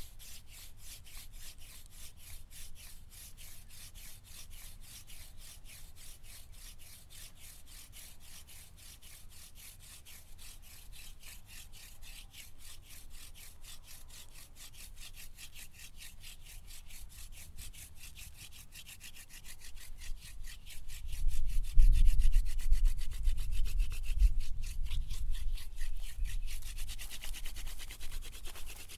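Hand-drill fire making: a wooden spindle is spun back and forth between the palms and grinds in the notched socket of a wooden hearth board, making an even, rapid rhythm of rubbing strokes as it works up an ember. About two-thirds of the way through, a louder low rumble comes in and lasts until near the end.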